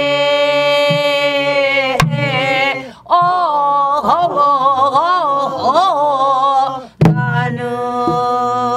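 Singers in the Korean Namdo folk style (남도민요) stretching out a sung phrase. A long held note gives way to a wavering, ornamented passage with wide vibrato, then settles on another long held note. Single sharp drum strokes on a buk barrel drum come about two seconds in and again about seven seconds in.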